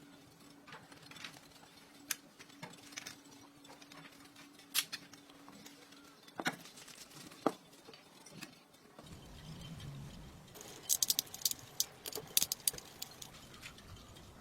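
Scattered light clicks and taps from small parts or tools being handled, with a faint steady hum that stops about halfway through and a quick run of sharp clicks near the end.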